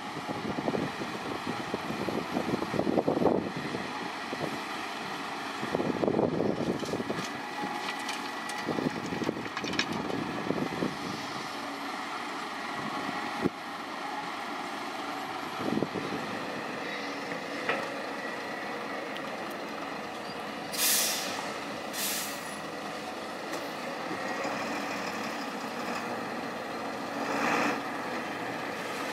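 Diesel engines of a loading excavator and twelve-wheel dump trucks running, with several heavier swells through the first half as the excavator works. Short air-brake hisses from the trucks come about two-thirds through and again near the end.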